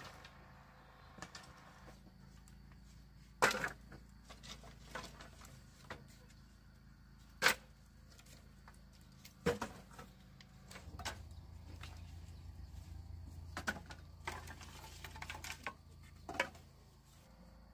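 Scattered sharp knocks and clicks, five loud ones a few seconds apart among many small ticks, with a faint low hum in the middle.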